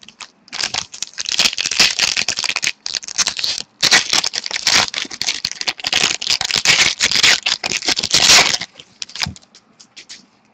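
Trading card pack wrapper crinkling and crackling as it is torn open and handled, in two long stretches with a brief pause between them.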